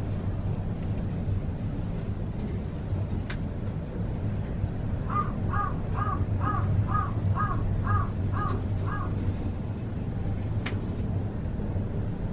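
A crow cawing about eight times in a quick, even series, over a steady low hum. Two sharp clicks are also heard, one before the caws and one after them.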